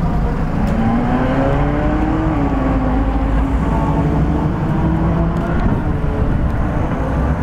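Ferrari California's V8 engine pulling the car along at low speed: its pitch climbs over the first couple of seconds, then holds steady and eases off lower near the end.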